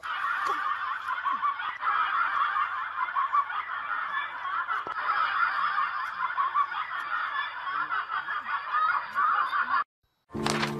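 Dense, continuous snickering laughter that cuts off suddenly near the end.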